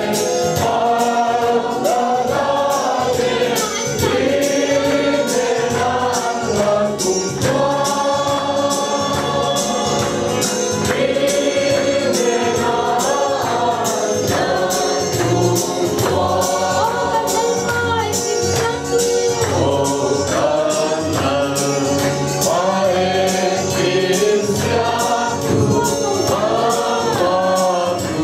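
A congregation of men and women singing a gospel hymn together over a steady percussion beat.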